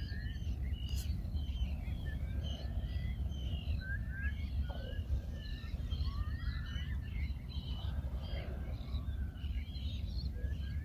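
Many birds calling, with short scattered chirps and whistles overlapping throughout, over a steady low rumble.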